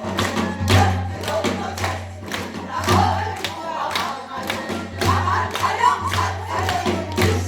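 Several singers singing a Namdo Korean folk song together in chorus over a steady drum beat, with a low steady hum underneath.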